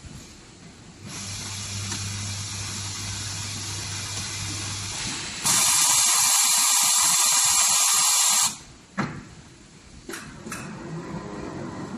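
Automatic high-frequency plastic welding and cutting machine at work: a steady electrical hum with hiss for several seconds, then a loud, even hiss lasting about three seconds that cuts off suddenly, followed by a few sharp clicks and lighter mechanical noise.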